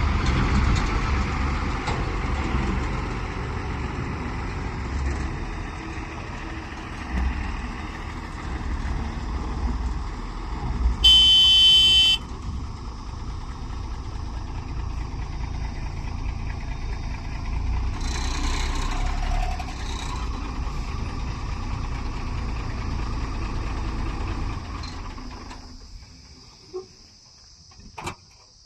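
Diesel engines of a JCB backhoe loader and a tipper truck running at work, with a single horn blast of about a second near the middle. The engine sound fades away near the end, leaving a few faint knocks.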